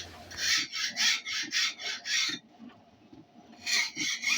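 Hand file rasping on metal in quick back-and-forth strokes, about four a second. There are two runs, with a pause of about a second and a half between them.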